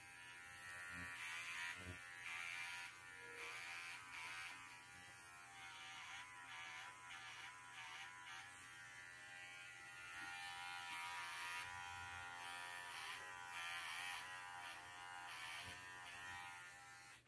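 Wahl Arco cordless dog clipper running as it cuts through a poodle's leg coat, a steady electric hum that wavers slightly in pitch, then switches off at the end. Its battery is low and the clipper is struggling.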